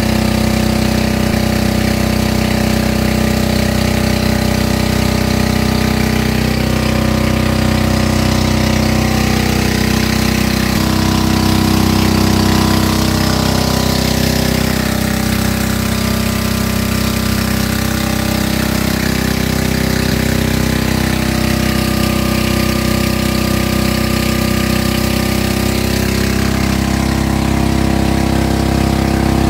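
A small boat's engine running steadily, its pitch wavering slightly now and then.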